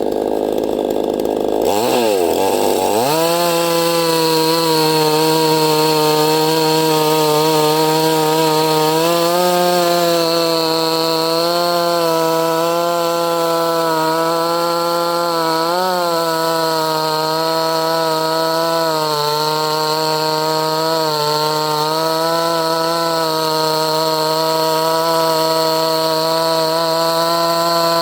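Neotec NCS6800 68cc two-stroke chainsaw cutting through a log. About two seconds in the engine note drops and climbs back, then holds at steady high revs under load with small wavers.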